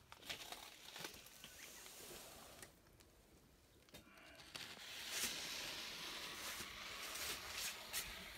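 A wooden stir stick scraping and clicking in a plastic tub of thick mix. After a quieter pause it gives way to a steady hiss with a few sharp clicks.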